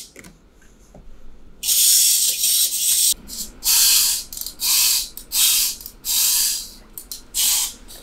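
Repeated bursts of hissing noise: one of about a second and a half, then five or six shorter bursts in quick succession.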